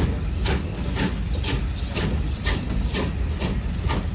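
A steam train running, with a low rumble and a regular beat about twice a second.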